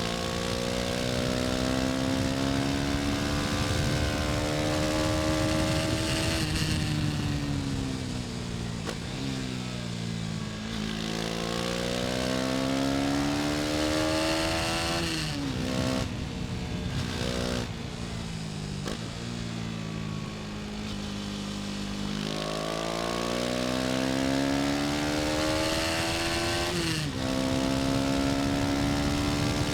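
KTM 250 Duke's single-cylinder four-stroke engine under way, accelerating and easing off in turn: its pitch climbs as it pulls and falls away off the throttle, with sudden drops at the upshifts, three of them in the second half.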